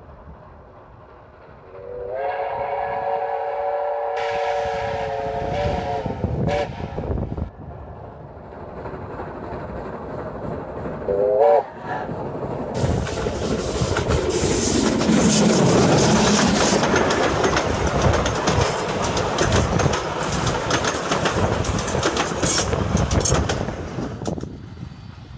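Ja-class steam locomotive Ja 1250 sounds its whistle: one long blast about two seconds in and a short blast near eleven seconds. It then runs close past, the rumble of the engine and train with wheels clicking over the rail joints, loudest just after the middle and fading near the end.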